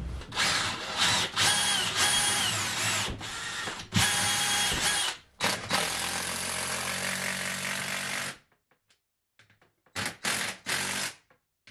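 Cordless drill drilling new holes into a wooden wall, whirring in three long runs that stop about eight seconds in, then a few short bursts near the end.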